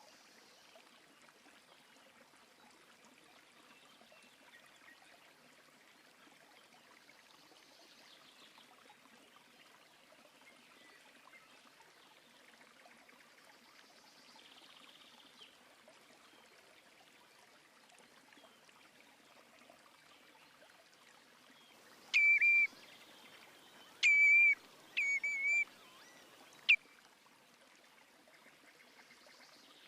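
Faint steady rush of flowing river water. About two thirds of the way in, a bird gives four loud, short, clear call notes over about four seconds, followed by a sharp click.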